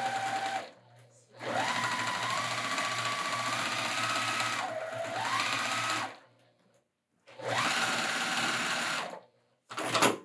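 Juki semi-industrial sewing machine stitching through layers of wool, starting and stopping in three runs. Its motor whine climbs in pitch as it speeds up, drops for a moment in the middle of the longest run, then climbs again. A brief loud noise near the end.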